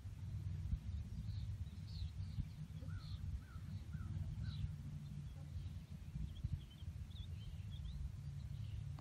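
Birds calling in short chirps, a run of four about three seconds in and more scattered high chirps later, over a low rumble of wind on the microphone.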